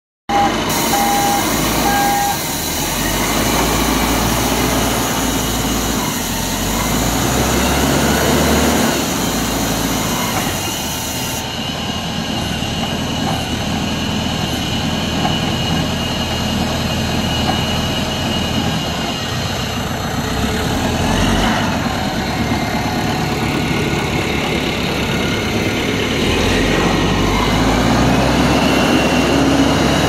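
Self-loading concrete mixer truck's Yunnei YN4102 four-cylinder diesel engine running steadily as the machine drives and manoeuvres, with a few short beeps in the first two seconds.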